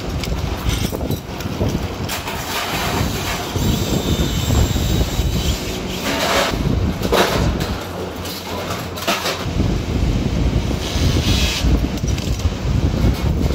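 E-waste PCB dismantling machine running: a steady low rumble with circuit boards and loose parts clattering in its drum, with several louder, sharper rattles around the middle.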